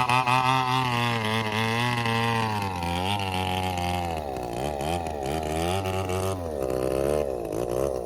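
Diesel engine of a Komatsu D68ESS bulldozer running hard while pulling a heavy log. Its pitch holds high and steady at first, then sags and wavers up and down from about three seconds in as the engine labours, and the sound drops away right at the end.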